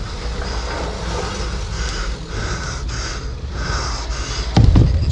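Dirt jump bike rolling with a steady low tyre rumble, under the rider's rhythmic heavy breathing from effort. A few loud knocks come near the end.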